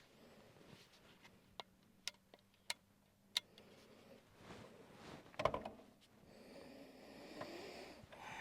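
Four sharp clicks, then a louder clunk with rustling as things are handled, followed by a soft steady hiss.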